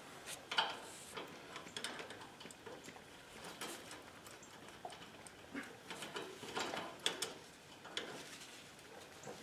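Faint, irregular clicks and scrapes of side cutters working a cotter pin on a tractor's hitch linkage, with a glove or cloth rustling close to the microphone.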